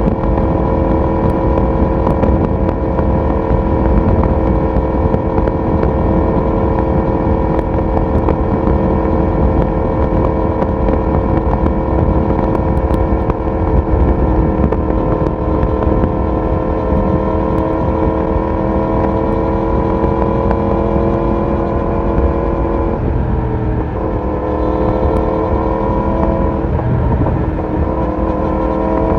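Yamaha YZF-R1 inline-four engine and exhaust at a steady cruising note. About three-quarters of the way through the note dips briefly, then rises steadily near the end as the bike accelerates.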